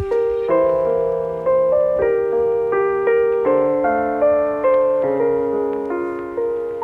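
Background music: a soft piano melody with chords, notes struck and left to fade.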